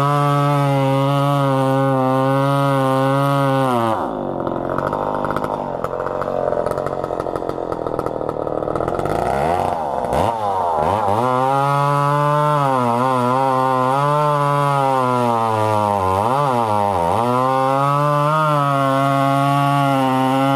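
McCulloch PM700 two-stroke chainsaw running at full throttle in a cut, dropping to a rough idle about four seconds in. It revs back up around ten seconds and runs at high revs again, its pitch wavering and dipping briefly a couple of times as it cuts into the log.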